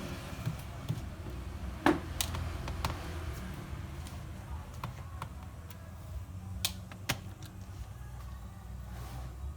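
Screwdriver taking out the screws on a laptop's plastic bottom cover: a few scattered sharp clicks, the loudest about two seconds in and two more around seven seconds, over a steady low hum.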